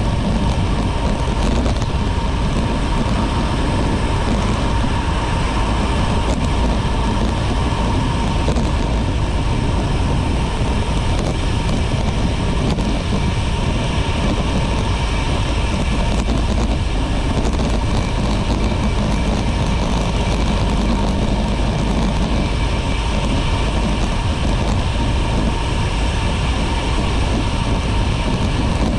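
Steady wind rush on the microphone and road noise from a road bike riding along, unchanging throughout, with a heavy low rumble and a faint steady high tone.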